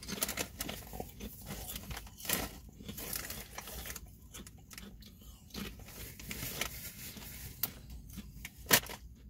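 Chewing and crunching Ballreich's Sweet Thai chili potato chips: a run of crisp crunches, the loudest a little before the end.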